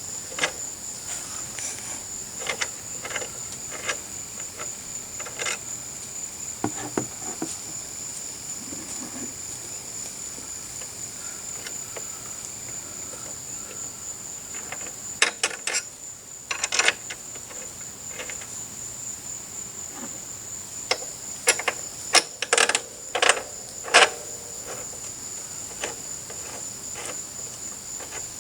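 A steady high-pitched insect chorus of crickets or cicadas, with scattered sharp clicks and knocks from hand work on the backrest bolts and brackets. The clicks bunch up about halfway through and again near the end.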